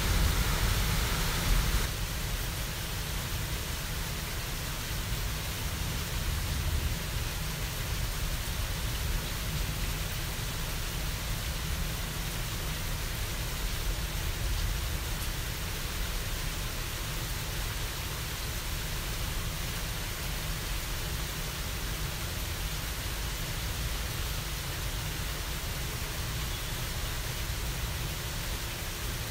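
Thunderstorm rain, a steady even hiss with a continuous low rumble underneath. It is louder for the first two seconds, then holds steady.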